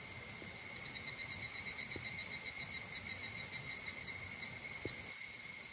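Insects chirping in a steady high trill that pulses about five times a second for a few seconds, then evens out.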